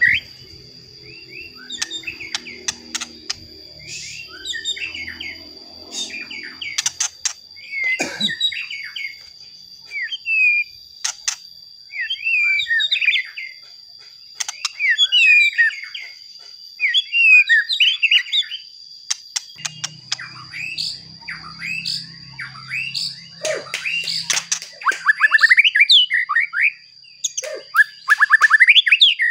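Male white-rumped shama singing in a cage: short bursts of varied whistles, trills and chattering phrases with brief pauses between them. A steady high-pitched tone runs underneath.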